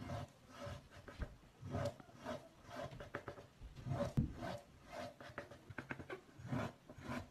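Loop carving tool scraping flutes into an unfired clay bowl: short, faint rasping strokes about twice a second.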